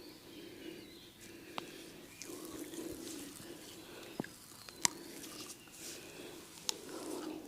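Oiled hands rubbing and kneading a person's head and neck, a soft wet rubbing, broken by a few sharp clicks, the loudest about halfway through.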